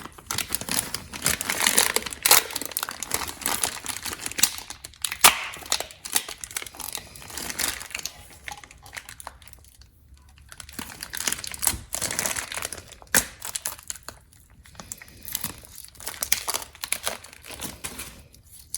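Thin plastic being peeled off a cured resin casting, crinkling and crackling in irregular bursts, with a short lull about ten seconds in.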